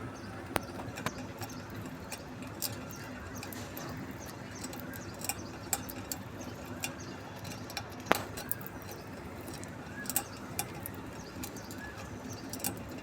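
Scattered sharp clicks and taps, a couple of them louder, with a few faint soft chirps from a budgerigar over a steady low hum.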